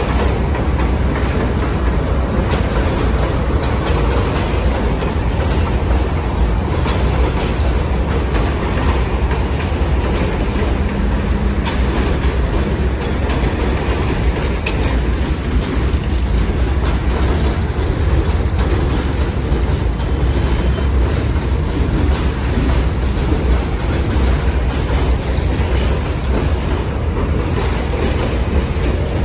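R32 subway train running past on an elevated steel track: a steady loud rumble of wheels on rail, with clickety-clack over the rail joints.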